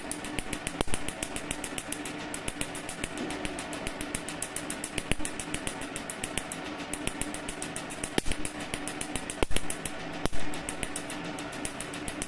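PicoSure picosecond laser firing over and over on tattooed skin: a rapid, even train of sharp snaps, several a second, over a steady hum, with a few louder cracks later on.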